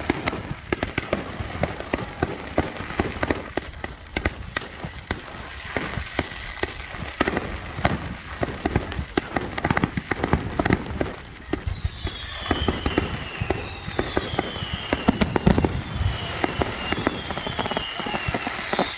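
Fireworks display: a dense, irregular string of aerial shell bangs and crackles. From about twelve seconds in it carries a series of short, high whistles that fall in pitch, roughly one a second.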